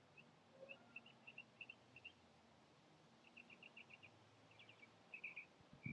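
Faint small bird chirping: short high chirps, some single and some in quick runs, over near-silent garden air.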